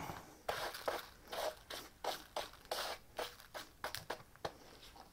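Hand brush sweeping steel drill swarf across a duct-taped engine block deck into a plastic dustpan: a run of short, scratchy brush strokes, about two to three a second.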